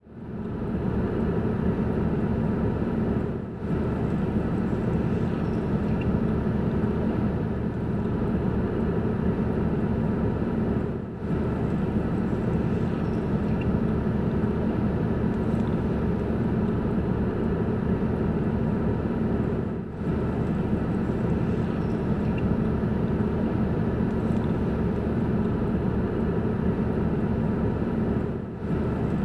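Steady low drone of a car engine idling, heard from inside the cabin, dipping briefly about every eight seconds.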